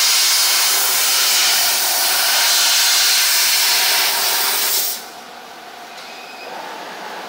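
Laser cutting machine cutting aluminium sheet: a loud, steady hiss of assist gas jetting from the cutting head's nozzle. The hiss cuts off about five seconds in as the cut ends, leaving a quieter steady machine background.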